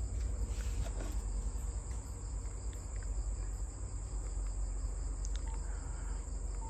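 Crickets chirring steadily, one continuous high-pitched trill, over a low hum with a few faint ticks.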